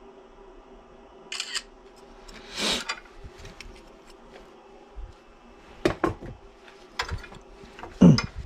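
Irregular sharp clicks and knocks, the loudest near the end, with a short hiss about two and a half seconds in, over a steady low hum.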